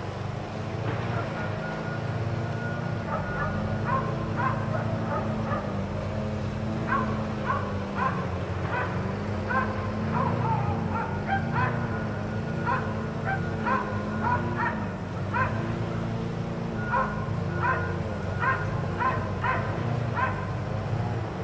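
Dogs barking over and over in quick runs of short barks and yips, over a steady low drone.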